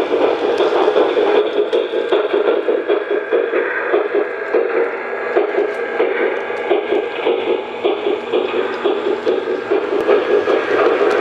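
Lionel O-gauge Union Pacific Big Boy 4-8-8-4 model steam locomotive running on three-rail track, its onboard sound system playing a rapid, steady steam chuff along with the model's running noise.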